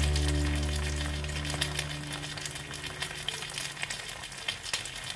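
Hot oil crackling and popping around a battered piece of meat frying in a miniature pan, with scattered pops several times a second. A held music chord dies away over the first two seconds.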